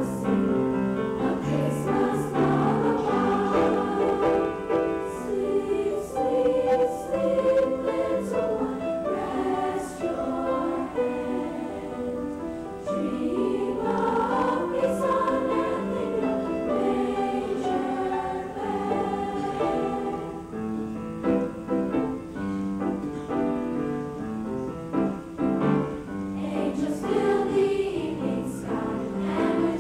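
Junior high women's choir singing, many voices together in sustained, shifting notes.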